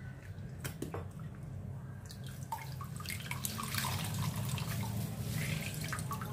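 Water dripping and splashing back into a glass bowl as a slice of soaked white bread is squeezed out by hand, the drips busiest from about halfway through. A few light taps early on, over a steady low hum.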